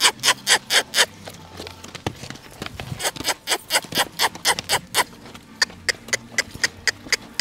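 Hooves of a dancing horse striking the ground in a fast, even rhythm of about four to five strikes a second. The stepping comes in three runs, breaking off about a second in and again just after five seconds.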